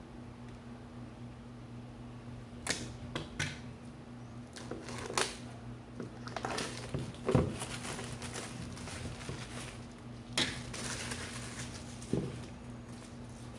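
Cardboard smartwatch box being opened by hand on a table: scattered clicks, scrapes and crinkles of the packaging, with the loudest single knock about seven seconds in. A faint steady low hum underlies it.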